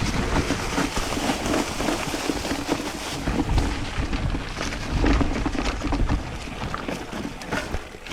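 Mountain bike rolling down a rough dirt trail, tyres crunching and the bike rattling over bumps, with wind rumbling on the microphone.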